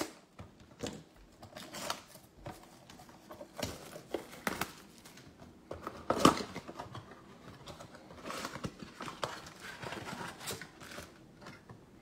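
Cardboard trading-card blaster box being cut open and its wrapped packs pulled out: a run of short scrapes, rustles and crinkles, the sharpest about six seconds in.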